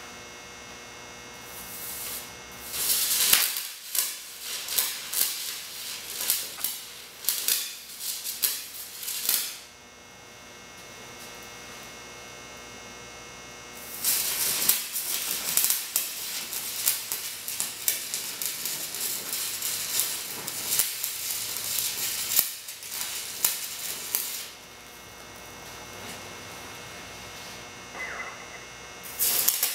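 Stick-welding arc from a rod run on two car batteries through jumper cables in DC electrode-negative polarity, crackling and sizzling as weld beads are laid on steel brake rotors. It comes in two long runs of several seconds each, with a steady low hum in the pause between them, and starts again near the end.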